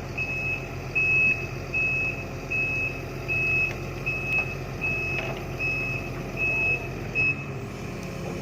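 Heavy machinery's reversing alarm sounding a single high beep about every 0.8 s over a diesel engine running steadily; the beeping stops about seven seconds in.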